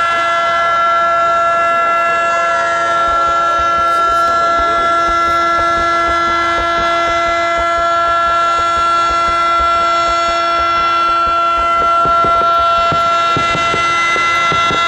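Fireworks starmine going up: a run of low thumps from the mortars firing begins a few seconds in, and shells start bursting near the end. Under it, and louder, a steady tone is held at one pitch throughout.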